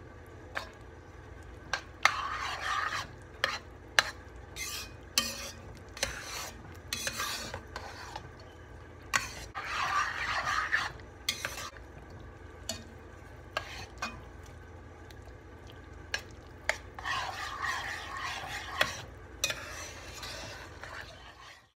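A metal spoon stirring thick, creamy chicken-and-vegetable filling in an enameled cast-iron Dutch oven: wet scraping swishes in three spells, with sharp clicks and knocks of the spoon against the pot's sides and bottom.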